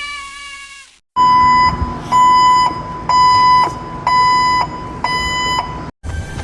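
A sliding tone falls in pitch and fades out, then after a short gap comes a series of five identical high electronic beeps, each about half a second long and spaced about a second apart, over a low hiss.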